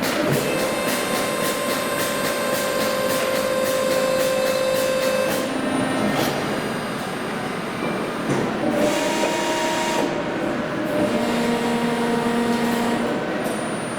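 CNC hydraulic tube bender running as it works a 139.7 mm steel tube: its drives whine steadily, the pitch stepping to new tones about five and a half seconds in and again later. Fast ticking, about four a second, runs over the whine for the first five seconds.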